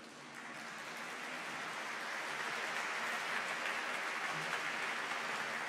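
Audience applauding in a large concert hall, the clapping swelling steadily.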